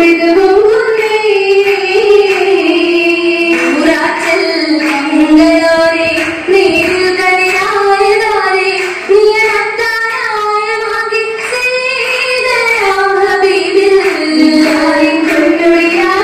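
Girls' voices singing an Oppana song, one unbroken melody line that rises and falls.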